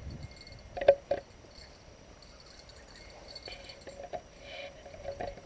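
Crickets chirping steadily in the dark, with two short, sharp, loud sounds close together about a second in.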